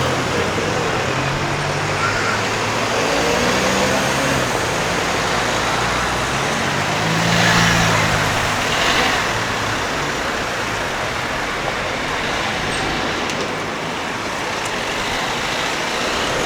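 City street traffic: cars and heavier vehicles such as buses or trucks driving past, engines and tyres making a steady rush of noise, with louder passes about two and eight seconds in.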